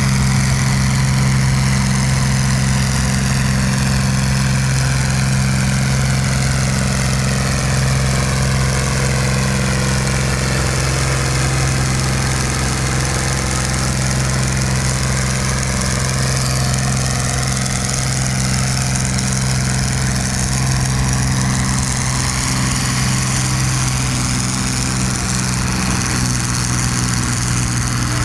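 John Deere tractor engine running hard under load at a steady pitch as it pulls a weight-transfer sled.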